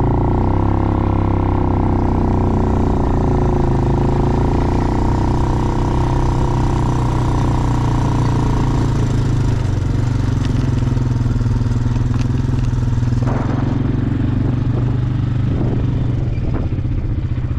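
An engine running steadily with a low drone; a higher steady tone over it fades out about nine seconds in.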